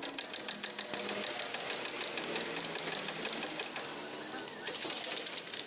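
Rapid, even mechanical rattle from a machine, many clicks a second, breaking off briefly a little after four seconds in.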